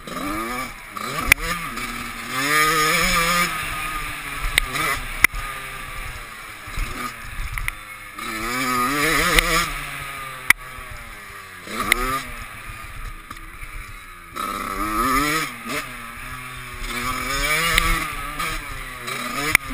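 Dirt bike engine revving up and dropping back again and again as it accelerates and backs off around a motocross track, heard from the rider's helmet with wind noise and a few sharp clicks.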